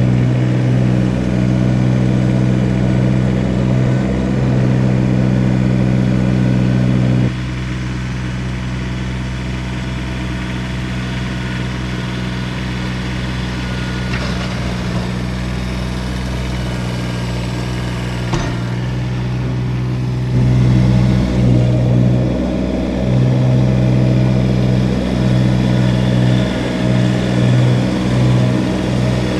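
Kubota BX1850 compact tractor's three-cylinder diesel engine running steadily. It drops to a quieter note about seven seconds in, a single knock comes near eighteen seconds, and the engine comes back louder and uneven after about twenty seconds.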